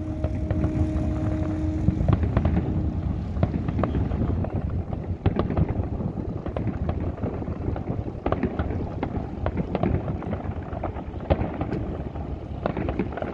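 Fireworks going off in a dense barrage: a continuous low rumble of bursting shells with frequent sharp bangs and crackles. A steady tone at two pitches sounds at the start and stops about two seconds in.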